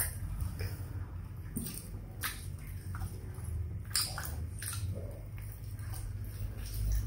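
Eating barbecue-sauced fried chicken by hand: scattered wet bites, chewing and squishing as the meat is torn apart and bitten, over a low steady hum.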